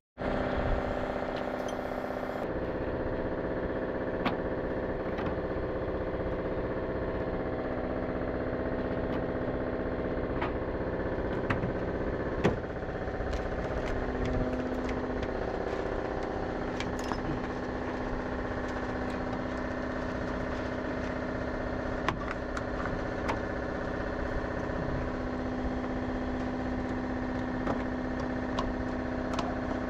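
A motor running steadily with a constant hum of several held tones, over scattered clicks and knocks of the truck's plastic and metal front grille parts being handled and fitted.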